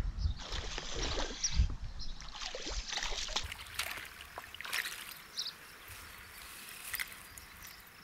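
Water splashing as a small hooked northern pike thrashes at the surface while it is reeled in. The splashes come irregularly and are loudest in the first few seconds, then die away.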